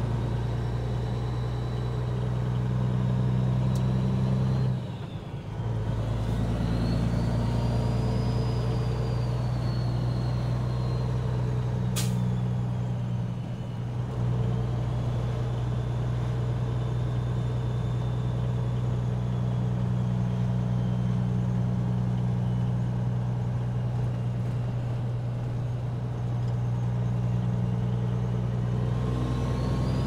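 Peterbilt 389's Caterpillar 6NZ (C15) inline-six diesel heard from inside the cab, running steadily under way. The engine note breaks briefly about five seconds in and dips again a little after the middle. A faint high whistle rises and falls above it, and there is one sharp click near the middle.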